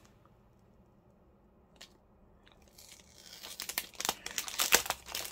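Clear plastic packet crinkling and crackling in the hands as it is opened. It begins about three seconds in after a near-quiet start, with the loudest crackle near the end.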